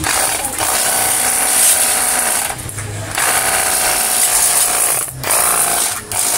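Cordless 24-volt battery pressure washer running, its small pump motor whining under the hiss of a strong water spray. It stops briefly two or three times, about two and a half seconds in and again near the end.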